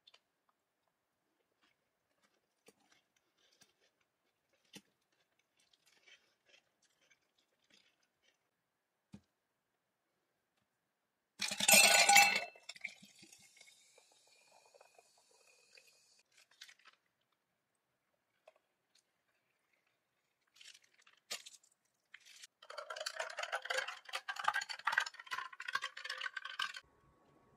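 Faint clicks of a fork in a ceramic bowl, then a loud clink and clatter against a glass, followed by a drink being poured over ice, its pitch rising slightly as the glass fills. Near the end a metal straw stirs the ice, making a fast run of clinks against the glass.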